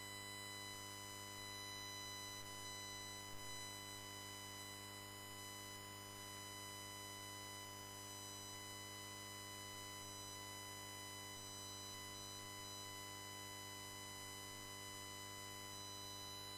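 Faint, steady electrical buzz and hum on the live-stream audio feed. A fixed set of pitched tones stays level and unchanging throughout.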